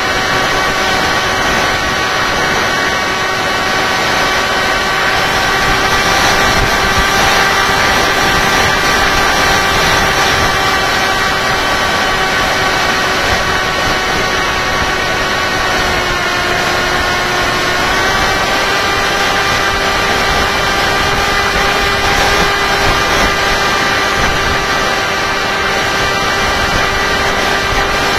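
Tek Sumo flying wing's electric motor and propeller in flight, heard from the onboard camera: a steady whine over rushing air, dipping slightly in pitch for a couple of seconds a little past halfway, then back up.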